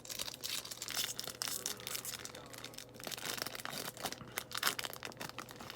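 Foil wrapper of a baseball card pack being torn open and crinkled by hand, an irregular crackle of tearing and crumpling.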